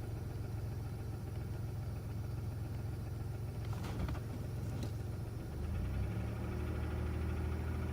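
A 1999 Buick Century's 3.1 V6 running, heard from inside the cabin, with a knock that goes with engine speed. The engine note rises and gets a little louder about five seconds in. The owner suspects piston slap and is unsure whether it is a knock or a lifter tick.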